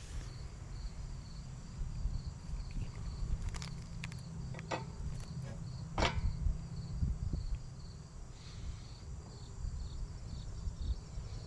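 A few short, sharp metal clicks and knocks from hand tools being worked on a small engine during clutch removal, the clearest about six seconds in, over steady, pulsing insect chirping and a low rumble.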